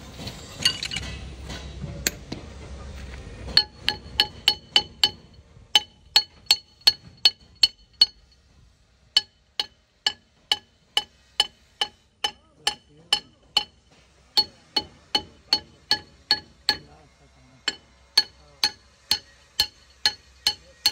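Hammer tapping steadily on steel, about two to three strikes a second in runs with short pauses. Each strike rings with a clear metallic clink.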